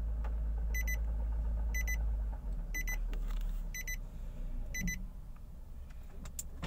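A car's electronic warning chime repeats as a short quick run of beeps about once a second, six times. Beneath it is the low hum of the Nissan Latio's engine in Drive, its repaired automatic transmission turning a jacked-up wheel. The engine hum drops about two and a half seconds in as the revs and wheel speed fall.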